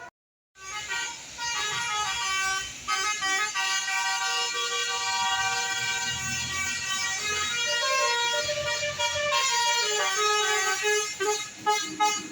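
Bus 'telolet' horn, a set of multi-tone air horns, playing a quick melody of stepping notes, several sounding at once. It starts after a brief silence, with a low engine rumble underneath in the middle.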